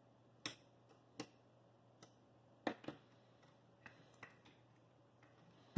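Scattered sharp clicks and light knocks from the declination worm gear of a Celestron CG-4 equatorial mount as the axis is rocked by hand against the worm. This is the slight rattle of gear backlash left after the worm housing was backed off an eighth turn.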